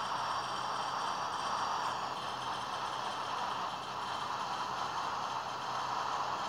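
A circuit board played as a noise instrument, giving a steady, grainy noise in the middle range with faint thin high tones over it.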